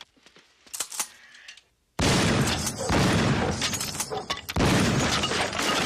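Shotgun blasts tearing through a wooden wall, with wood splintering. The first blast comes suddenly about two seconds in, followed by two more about a second and two and a half seconds later.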